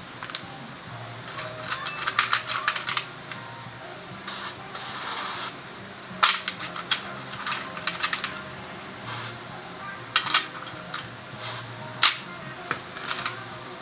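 Clatter of hand tools on a scooter wheel: clusters of sharp metallic clicks and knocks, with a short hiss about four to five seconds in.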